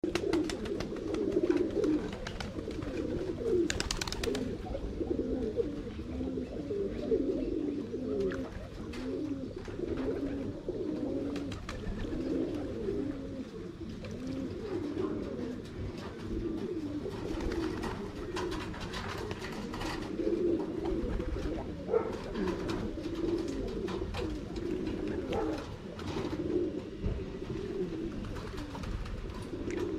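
Domestic pigeons cooing continuously, many birds' coos overlapping into a constant warbling murmur, with scattered short clicks over it.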